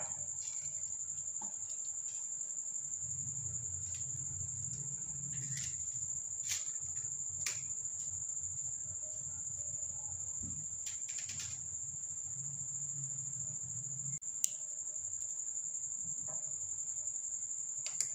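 A cricket chirring in one continuous, unchanging high-pitched tone, with a few light clicks scattered through.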